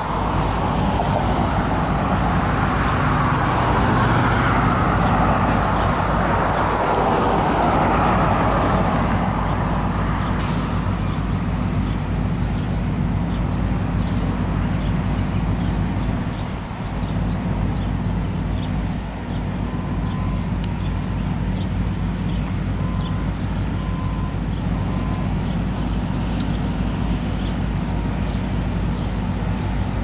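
Road traffic at an intersection: vehicles passing, one swelling up and fading away over the first ten seconds, over a steady low engine hum.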